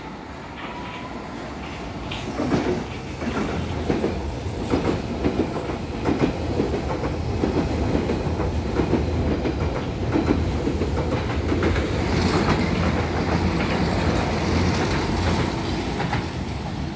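London Underground 1973 Tube Stock train on the Piccadilly line running along the platform, its wheels clattering over the rail joints over a steady low rumble. It grows loud about two seconds in and fades as it pulls away near the end.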